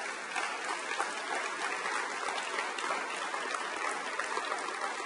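Audience applauding: many people clapping in a dense, steady spatter.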